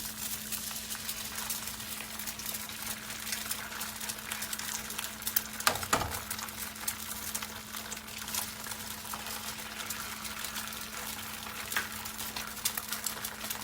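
Eggs frying in oil in a pan on low heat, a steady fine sizzle with small crackles, and one soft knock about six seconds in.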